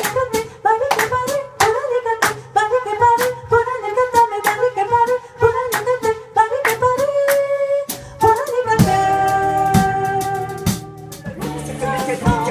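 Live band music with a woman's voice, flute, electric guitar, bass and drums, driven by a quick clicking rhythm. About nine seconds in it opens out into fuller, held chords.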